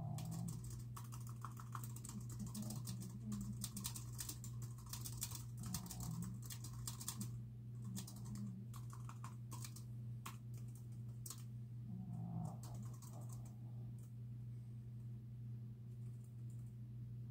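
Typing on a computer keyboard: fast runs of keystrokes in bursts with short pauses, thinning to scattered keys in the last few seconds, over a steady low hum.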